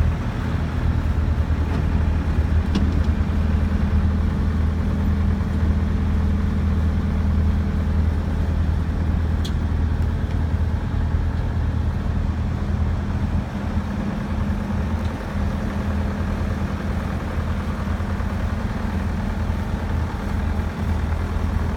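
A 2012 Bobcat S185 skid steer's Kubota diesel engine running steadily at one constant speed, with an even low hum.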